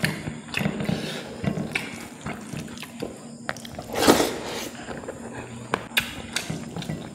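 Close-up mouth sounds of eating fish curry: wet chewing and lip smacks in short irregular clicks, with one louder slurp about four seconds in.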